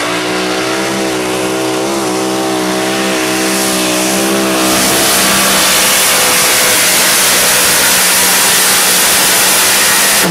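Mini pulling tractor's racing engine held at high revs under full load on a pull, a loud, steady drone. About halfway through it grows louder and rougher, with more hiss and rasp.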